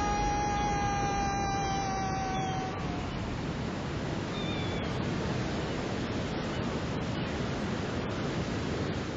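Steady rushing wind over open sea, with a held high note that slowly sinks in pitch and fades out about three seconds in.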